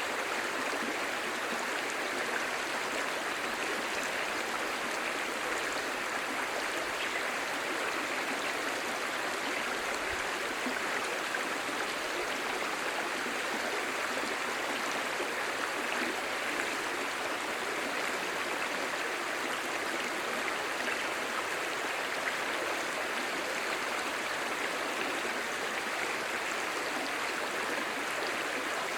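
Clear mountain stream babbling over stones, a steady rushing murmur.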